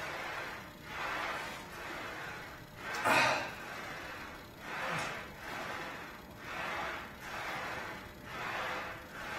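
A man breathing hard and rhythmically through a set of seated barbell shoulder presses, about one breath a second, with a louder burst about three seconds in.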